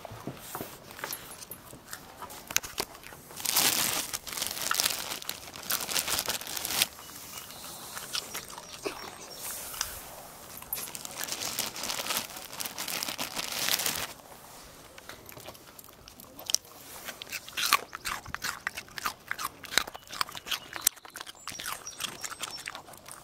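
Dogs crunching and chewing raw carrots: bouts of sharp, irregular crunches with short quieter pauses between them.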